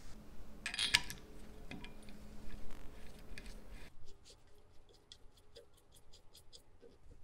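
Brass blow torch parts handled with gloved hands: light metallic clicks and cloth rustle, with a sharp click about a second in. In the second half comes a run of faint quick ticks, about four a second, as a small brass fitting is screwed into the torch body.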